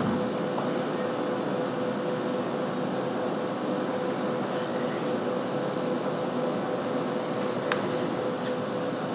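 Steady machine hum of a running Branson ultrasonic aqueous cleaning line, a constant low drone with thin high whines over it, as its dryer lid lowers shut. A faint single click near the end.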